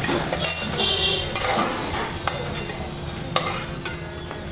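A spatula scrapes and knocks around a metal kadai, about once a second, as fried potato pieces are scooped out. Hot mustard oil sizzles steadily underneath.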